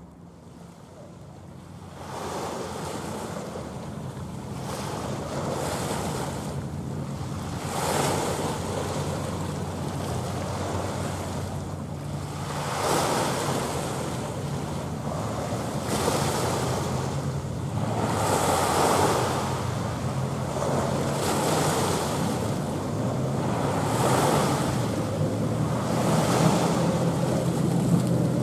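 Small waves washing onto the shore, swelling every two to three seconds and louder from about two seconds in, over a steady low hum.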